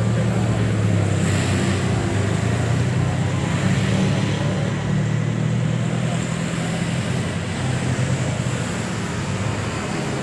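A small pickup truck's engine running steadily amid street traffic, its hum easing off slightly near the end.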